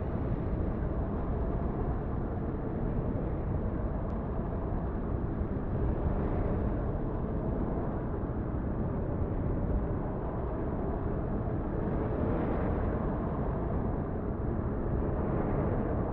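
Steady, dense low rumble of outdoor noise, swelling slightly a few times.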